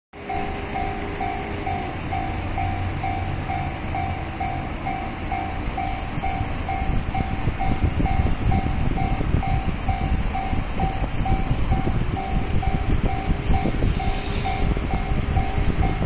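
Japanese level-crossing warning bell ringing steadily, a two-pitch electronic ding at about two and a half strokes a second, with the barrier lowered. A low rumble underneath grows louder from about seven seconds in.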